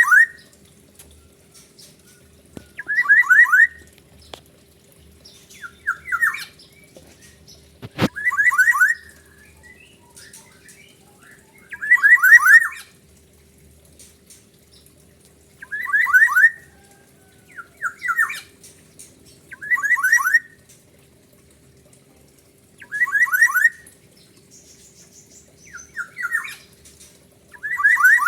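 Black-naped oriole (kepodang) calling over and over: about ten short bursts, each a quick run of falling notes, every two to four seconds. A single sharp click sounds about eight seconds in.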